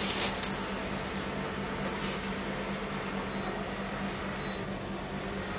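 Portable induction cooktop running with a steady fan hum; it gives two short high beeps about a second apart as the pan is lifted off the glass top, the hob's no-pan signal. Brief rustles come near the start and about two seconds in.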